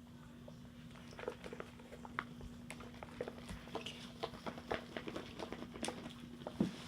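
Wet, sticky slime being mixed and squished in a container, making many small irregular clicks and squelches, over a steady low hum.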